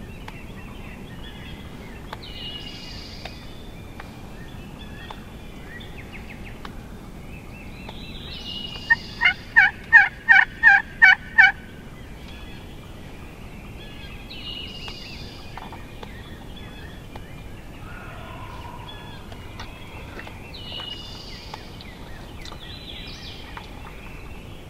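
Wild turkey calling: one loud series of about eight calls, about three a second, lasting some two and a half seconds. Songbirds sing faintly in the background.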